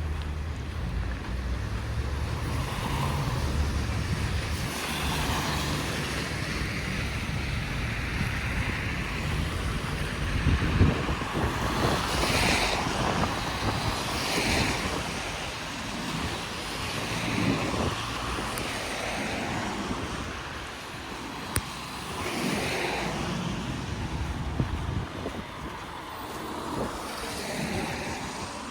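Traffic on a snow-covered city street: vehicles passing one after another, their tyres swishing through snow and slush, with wind rumbling on the microphone through the first half.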